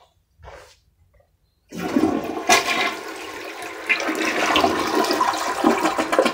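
Toilet flushing: after a short quiet, the flush starts suddenly about two seconds in and the water rushes and swirls down the bowl.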